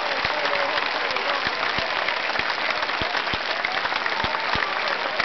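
Large crowd applauding and clapping, with voices calling out and irregular low thuds through it.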